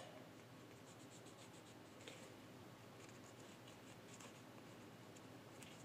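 Faint scratching of a pen drawing on cardboard, a few short strokes over near silence.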